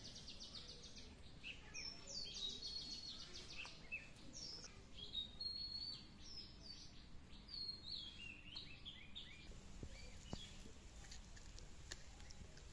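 Small birds singing. Fast trills of rapidly repeated high notes come first, then scattered, varied chirps that die away about three quarters of the way through.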